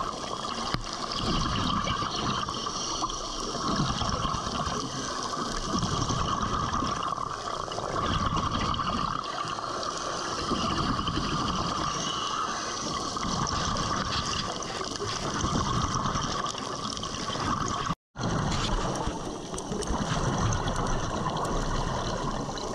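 Underwater sound picked up by a submerged camera: a steady watery hiss and gurgling that swells and fades every couple of seconds. The sound cuts out for a moment about eighteen seconds in.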